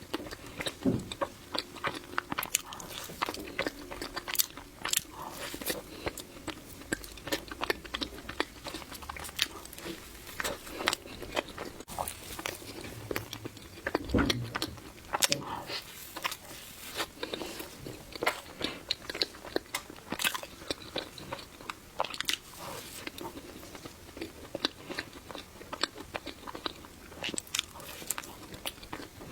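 Close-miked chewing of matcha mille crepe cake: a dense run of wet mouth clicks and smacks, with one heavier low thump about halfway through.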